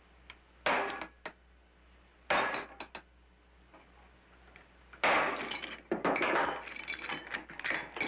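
Hammer driving a metal punch against iron handcuffs and chain on a wooden table, to knock the cuffs off: sharp metal blows about 0.7 and 2.3 seconds in, then a quicker run of blows and chain rattling from about five seconds in.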